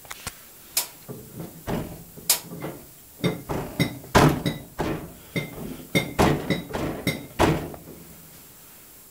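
Laundry being pushed by hand into the drum of a 1978 Candy 137 front-loading washing machine, with a run of irregular knocks and short metallic clinks from the drum and open door.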